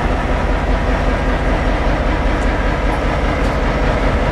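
Diesel freight locomotive engines running, a steady low rumble.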